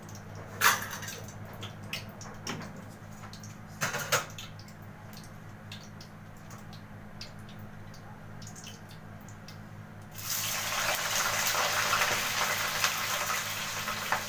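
A sharp knock about a second in and two more near four seconds, over a steady low hum. From about ten seconds in, water runs in a steady rush until it cuts off near the end.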